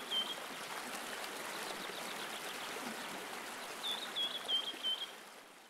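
Running water, like a stream, with a small bird chirping: a group of quick downslurred chirps at the start and another of about four near the end, before the sound fades out.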